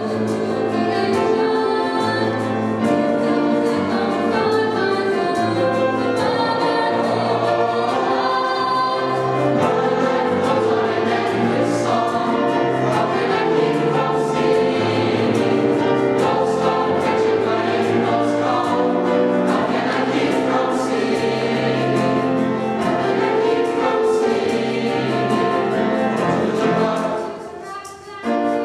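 High school chamber choir singing in harmony with piano accompaniment. The sound falls away briefly near the end at a break between phrases, then the singing resumes.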